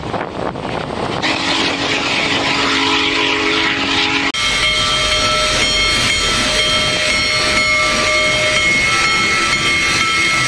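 Union Pacific Big Boy 4014 steam locomotive's whistle blowing one long blast, a chord of several low tones, starting about a second in and lasting about three seconds. After a sudden cut, a loud steady hiss of steam comes from the slowly passing locomotive, with a few thin high ringing tones in it.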